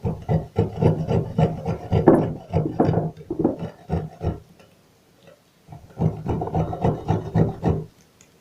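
Cypress cone being rubbed back and forth on a hand grater, a quick run of rasping strokes, a pause of over a second, then another run. Only the soft outer skin is being grated off, not the woody core.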